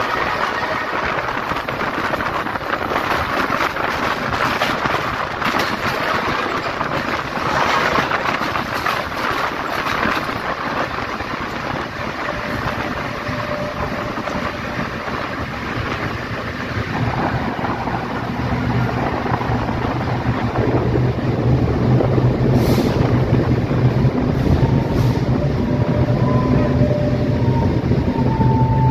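Passenger train running slowly into a station, heard from a carriage window: rushing wheel and air noise that gives way in the second half to a low steady hum, with faint thin high tones and a couple of clicks near the end as it slows.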